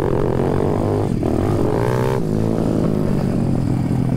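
170cc pit bike's single-cylinder four-stroke engine running under throttle on a dirt trail, heard from the rider's seat, with the revs rising briefly about a second and a half in.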